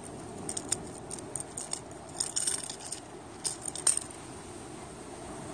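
Hard plastic lures and their treble hooks clicking and rattling against a plastic lure box as a minnow lure is taken out: clusters of light clicks for about four seconds, then they stop.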